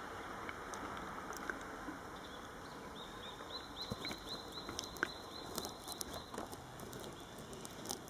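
Steady rush of a shallow stream. About three seconds in, a small bird gives a quick run of short high chirps, about six a second, for a couple of seconds. A few sharp clicks follow.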